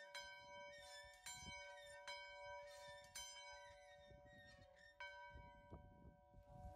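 A large cast metal bell on a post, rung by its rope. It gives several unevenly spaced strikes, each leaving a long faint ring. At a fish boil this bell signals the coming boil-over.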